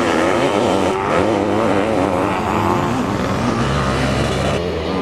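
Sidecarcross racing outfit's engine running hard on a dirt track, its pitch wavering quickly up and down as the throttle is worked.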